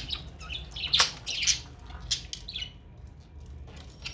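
Budgerigars chirping and squawking in quick, short calls, densest in the first two and a half seconds and loudest about a second in, then thinning out.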